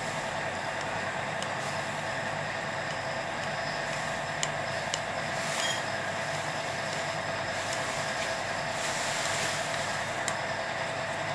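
A steady machine hum with a constant tone, and a few light clicks about halfway through and near the end.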